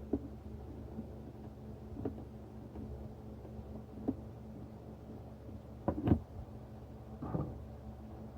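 Scattered light clicks and knocks of hand tools and plastic air-intake parts being handled on the engine, the loudest a double knock about six seconds in, with a short creak a second later, over a steady low hum.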